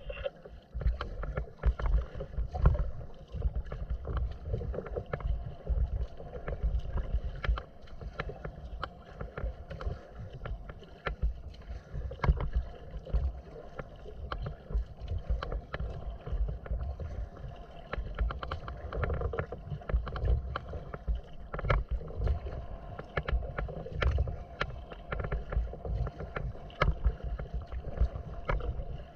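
Kayak moving through choppy bay water: irregular splashes and slaps of small waves against the hull, over a constant low rumble of wind buffeting the microphone.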